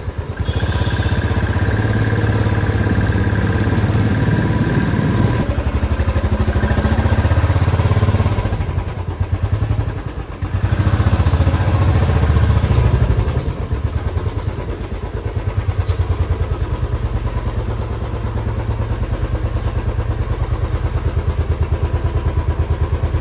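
Royal Enfield Classic's single-cylinder engine thumping as the motorcycle is ridden, revs rising and falling and dropping off briefly about nine seconds in. It then settles to a steady idle over the last several seconds.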